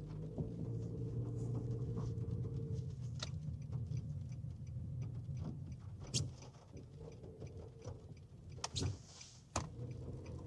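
Steady low engine and road hum of a moving vehicle heard from inside the cabin, with a few sharp clicks about three, six, eight and a half and nine and a half seconds in.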